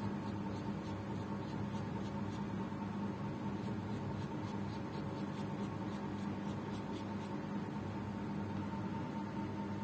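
A flat paintbrush scratching paint onto paper in short, quick strokes, about three a second, stopping about seven seconds in. A steady background hum runs underneath.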